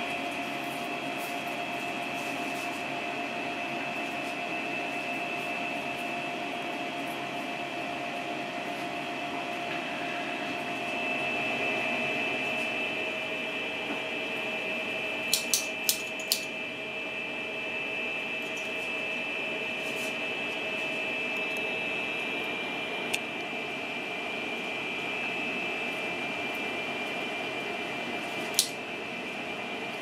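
Steady machine hum with a high whine over it, broken by sharp snips of small scissors cutting soft candy: four in quick succession about halfway through, then single snips a few seconds apart.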